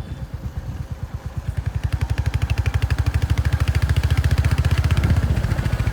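Motorcycle engine running with an even, rapid exhaust beat. It grows louder over the first two seconds, then holds steady.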